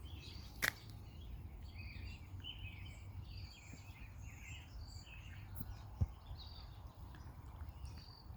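Several songbirds chirping and calling in short, scattered notes over a steady low rumble. A sharp click comes just under a second in and a short low knock about six seconds in.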